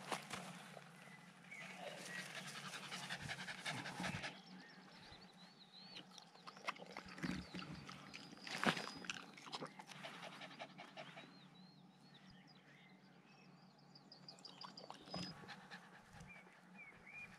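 A dog panting in bouts, most strongly in the first four seconds, with a single sharp tick a little past halfway.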